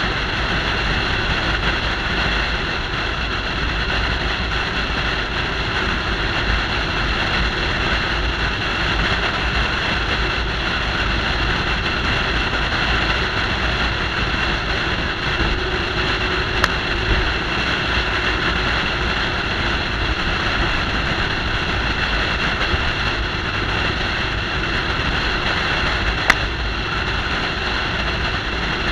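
Steady wind and road noise picked up by a roof-mounted camera on a vehicle cruising at highway speed. Two short sharp ticks break through, one past the middle and one near the end.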